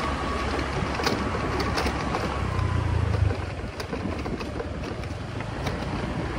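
Motorcycle running at riding speed on a dirt track, with wind noise on the microphone and a few sharp clicks. The engine's low drone swells briefly near the middle.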